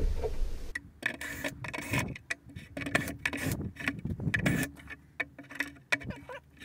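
Scattered clicks and knocks of wooden clamp pieces and screws being handled and lifted off a plywood router jig, with no power tool running.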